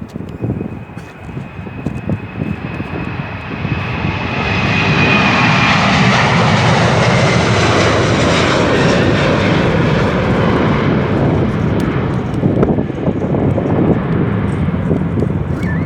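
Jet airliner passing close by, its engines building up over the first few seconds, then staying loud with a high whine that falls slightly in pitch. Gusty wind buffets the microphone.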